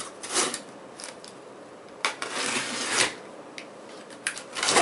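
A small blade slitting the packing tape on a cardboard shipping box: a short rasping cut, then a longer cut of about a second, then a few quick scrapes near the end as the tape and flaps give.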